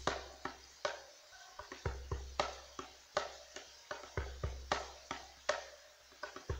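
A hand drum played in a steady rhythm: quick sharp strikes about three a second, with a deep bass stroke roughly every two seconds.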